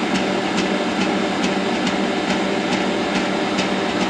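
Bosch stand mixer running steadily, its motor humming as it mixes cookie dough, with a light regular tick about twice a second.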